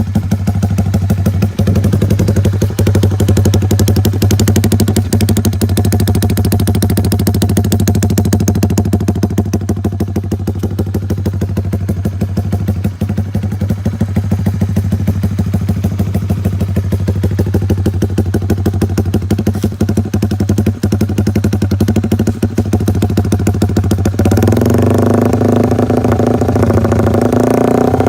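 Honda RS150's single-cylinder four-stroke engine running steadily through an AUN fat-pipe open 'bulate' exhaust, a loud, rapid pulsing exhaust note. Near the end the note turns fuller and a little louder.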